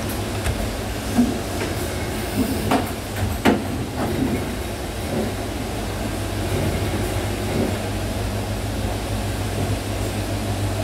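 Automated assembly machine with Epson SCARA robot arms and a rotary index table running: a steady low hum, with a few sharp clacks of the tooling in the first four seconds, the loudest about three and a half seconds in.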